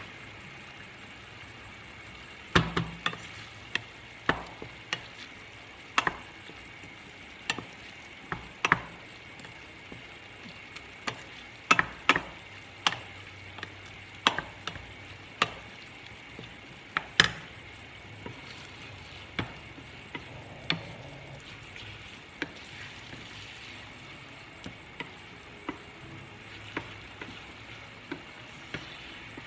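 Wooden spoons stirring ground meat in frying pans, knocking and scraping against the pans in irregular sharp knocks about once a second, over a steady sizzle of the meat browning. The knocks are louder in the first half and lighter near the end.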